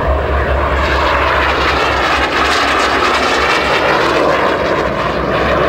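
Soko Galeb jet trainer's Rolls-Royce Viper turbojet running loudly in flight. The roar swells within the first second, its hiss is sharpest about halfway through, and it eases slightly near the end, as of the jet passing by.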